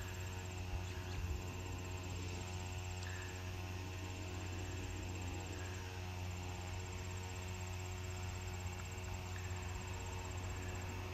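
Crickets chirping in high, fine pulsed trills that come in trains a second or two long, one after another, over a steady low hum.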